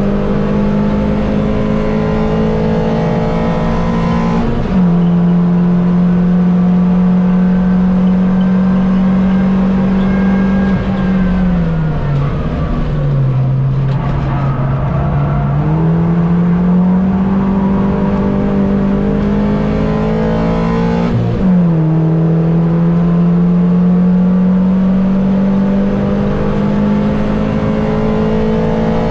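Mini race car's engine running hard under race acceleration, its note climbing steadily with quick drops at upshifts about 4 and 21 seconds in. In the middle it falls away as the car slows for a corner, then pulls back up the revs.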